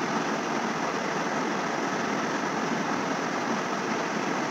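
Steady, even background hiss of room noise, with no distinct events.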